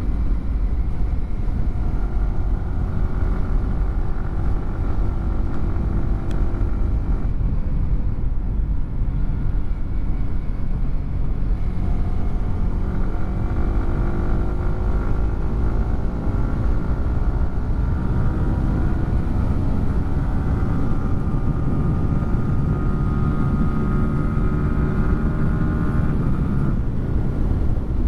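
Yamaha R15 M's 155 cc single-cylinder engine running through a WRX GP3 aftermarket exhaust while riding, with a heavy low wind rumble. The engine note climbs slowly as it pulls through a gear and steps down at gear changes a few times.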